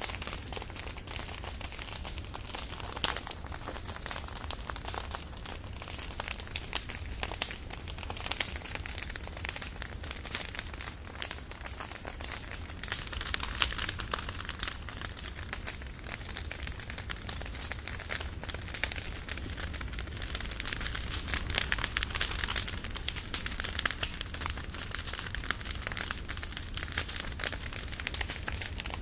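Firewood burning, with dense, continuous crackling and a few louder pops.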